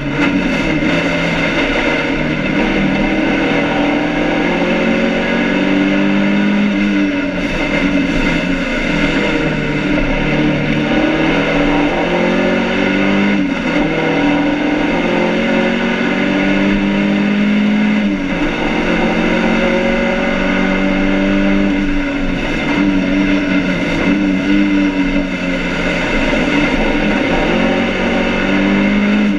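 BMW 2002 racing car's four-cylinder engine at full race pace, heard from inside the cabin. Its pitch climbs through each gear and drops back at each change, several times over. The driver is short-shifting to spare an engine that is running hot.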